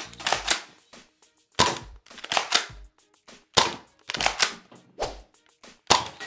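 Nerf Mega Cyclone Shock blaster firing mega darts over and over, a sharp snap with a low thump about once a second, mixed with the smack of foam darts hitting the plastic pop-up targets.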